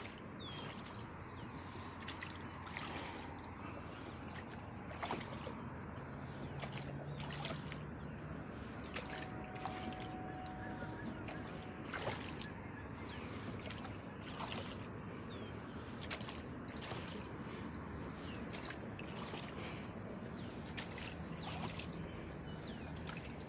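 Flat-bottomed rowboat being rowed: oars dipping and dripping, water lapping and sloshing at the hull, with scattered irregular clicks and knocks.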